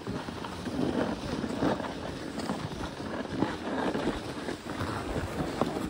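Wind buffeting the microphone over the irregular hiss and scrape of a board or skis sliding on snow, rising and falling unevenly.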